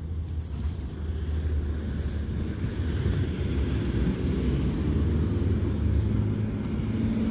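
Low rumble of road traffic, growing slowly louder, with a steady engine hum coming in about six seconds in.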